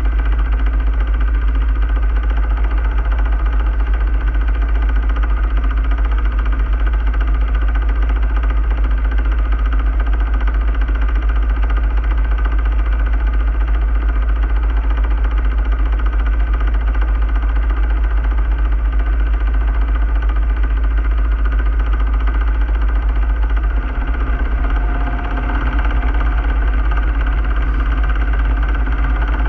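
A sailing yacht's inboard diesel engine runs at a steady speed while the boat motors along, a constant deep hum with a little dip in level about three-quarters of the way through.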